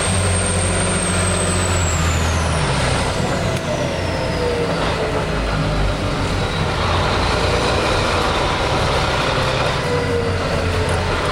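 A 7-ton military truck's diesel engine running steadily as the truck drives, with a high whine that fades away during the first few seconds.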